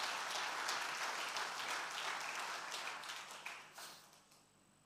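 Audience applauding, dense clapping that fades out about four seconds in.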